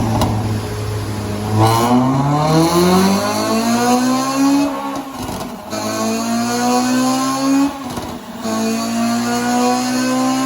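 Honda Civic FN2 Type R's 2.0-litre four-cylinder i-VTEC engine, with a four-branch manifold and decat exhaust, pulling hard up through the gears. After a steady note at first, the pitch climbs from about a second and a half in. It breaks twice, at about the middle and again near the end, each time at a gear change with a brief crackle, and climbs again from a lower pitch.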